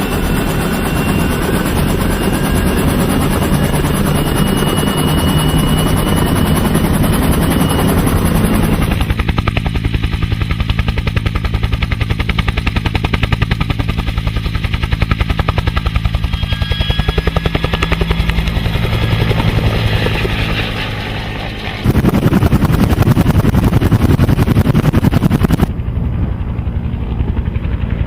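Helicopter sound: a fast rotor chop with a high whine above it. Its tone changes abruptly a third of the way in and twice more near the end, where different helicopter recordings are cut together.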